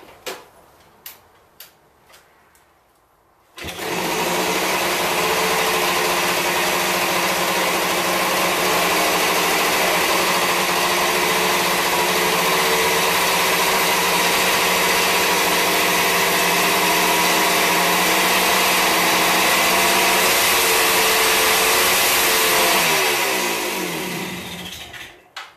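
Kawasaki F5 Big Horn 350's single-cylinder two-stroke engine: a few clunks, then it catches about three and a half seconds in and runs steadily. Near the end its pitch falls and it dies away. It is running after swapping ignition parts and runs real good, though it probably needs carburetor tuning.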